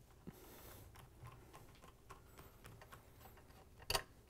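Faint clicks and scraping of a Phillips screwdriver turning screws into a stand mixer's cast-aluminium housing, with one sharper click near the end.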